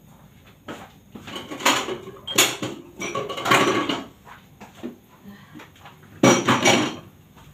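Dishes and kitchen items being handled and moved about on a counter, in a series of short, irregular clattering noises, the loudest a little after six seconds in.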